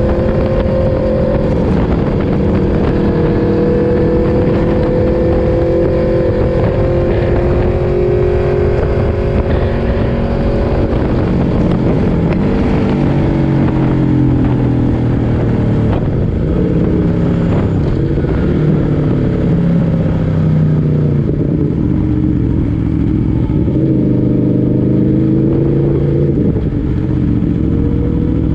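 Yamaha MT-10 SP's crossplane inline-four engine heard onboard, holding steady revs at first. From about twelve seconds in, the revs drop and climb again several times as the bike is ridden more slowly.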